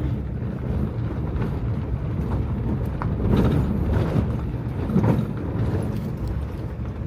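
Low steady rumble of a motor vehicle running, with a couple of faint brief sounds about three and five seconds in.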